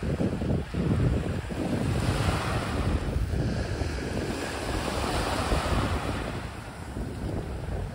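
Small sea waves breaking and washing up onto a sand-and-pebble beach, swelling in the middle of the stretch and easing off, with wind buffeting the microphone.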